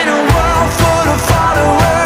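Background pop-rock song: a sung vocal over a steady drum and bass beat of about two strokes a second.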